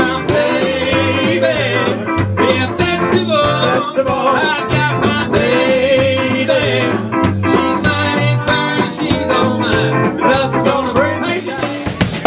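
Live blues-rock band: a lead singer with a second voice harmonising, over electric guitar, bass and a drum kit. At the very end the other instruments stop and the drums carry on alone.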